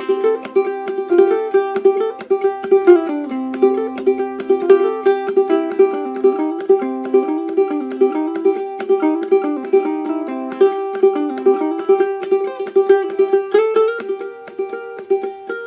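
Ukulele played clawhammer style: a quick, rhythmic stream of plucked melody notes struck down with the fingernail, with short percussive attacks and a repeating drone string.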